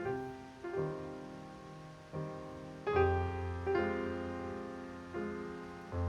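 Background piano music: slow, soft chords and notes struck roughly once a second and left to ring, with a deep bass note entering about halfway through.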